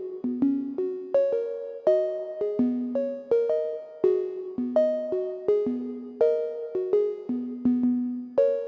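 Background music: a light, bouncy keyboard melody of plucked, quickly fading notes, about two to three notes a second.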